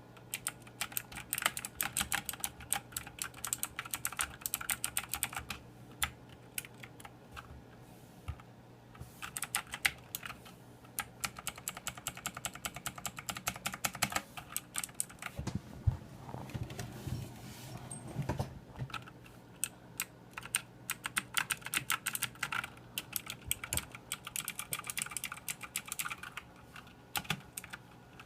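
Typing on a Motospeed CK104 mechanical keyboard: fast runs of key clicks broken by short pauses, with a few duller knocks around the middle.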